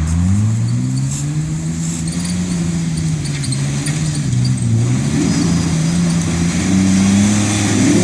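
Jeep engine revving hard under load on an off-road climb, its pitch rising at first, sagging about four and a half seconds in, then climbing again and held high near the end.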